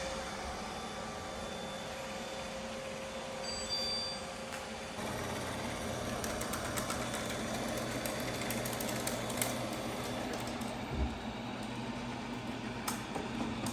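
Roborock S7 MaxV robot vacuum's motor running steadily. About five seconds in a louder, deeper hum joins in, with a few light clicks later on.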